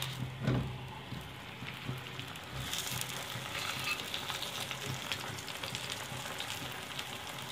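Mooli paratha smeared with ghee, freshly flipped, sizzling on a hot tawa over a gas burner: a steady frying crackle that picks up and brightens a little under three seconds in.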